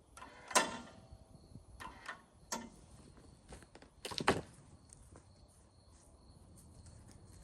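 A few scattered knocks and clunks, the loudest just over half a second in and about four seconds in, from work around a sawmill and its log; a faint steady high tone underneath.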